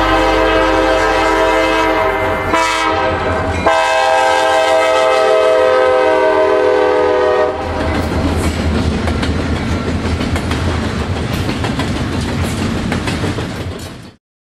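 Diesel locomotive's air horn sounding a long held chord, with the engine rumbling underneath, as the freight train approaches. About halfway through the horn stops and the steady clicking of steel wheels over the rail joints takes over as the double-stack container well cars roll by, cutting off just before the end.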